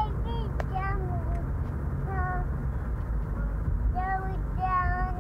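A young child's high-pitched voice making several short wordless calls and squeals over the steady low rumble of the car.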